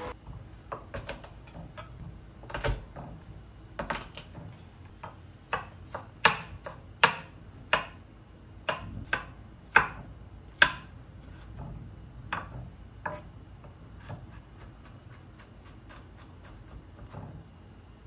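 Chef's knife chopping garlic on a wooden cutting board: a run of irregular knocks of the blade against the board, loudest through the middle, then lighter, quicker taps near the end.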